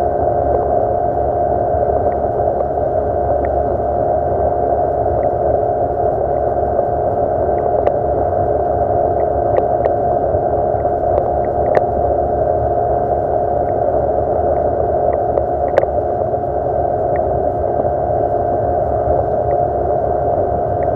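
Yamaha 40 hp two-stroke outboard motor running steadily with the boat under way, an even drone that holds its pitch, with a few light clicks over it.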